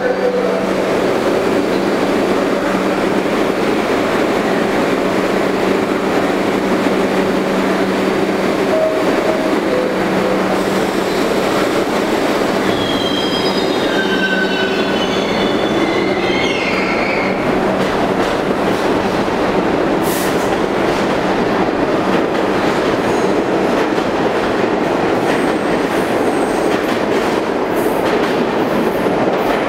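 Kawasaki R62 subway train standing in the station with a steady hum, then pulling out. Its wheels squeal as it gets moving, and it rumbles and clacks over the rail joints more and more as it speeds up past the platform.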